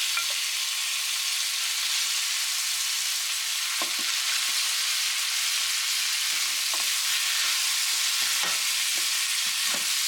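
Chicken, carrots and shrimp frying in oil, a steady sizzle, while being stirred, with a few short scrapes of the stirring utensil in the pan in the second half.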